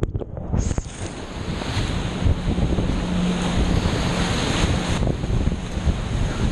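Rushing whitewater of a fast, high-water river running through big waves, with wind buffeting the microphone.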